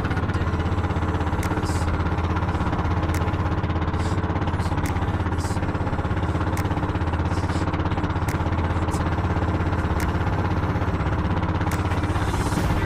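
Small outrigger boat's engine running steadily with a low hum, with scattered short sharp noises over it.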